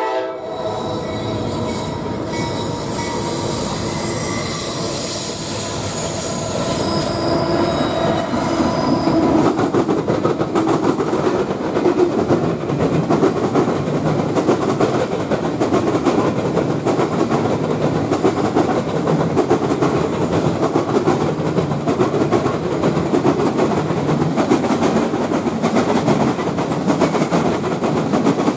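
A freight train loaded with long welded rail rolls steadily past. Its flatcars' wheels rumble and clatter over the track, with a few brief high-pitched wheel squeals. The sound grows a little louder about ten seconds in.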